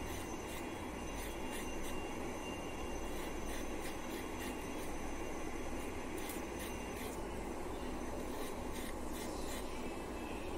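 Knife peeling a potato, with light, irregular scraping clicks over a steady low rumbling background noise.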